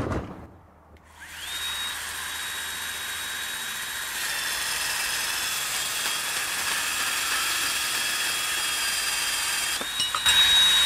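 A Bosch 18V cordless compact band saw spins up about a second in and cuts through half-inch rigid steel conduit. The motor makes a steady high whine, and cutting noise thickens from about four seconds in as the blade bites into the pipe. Near the end the whine climbs back as the blade breaks through and runs free.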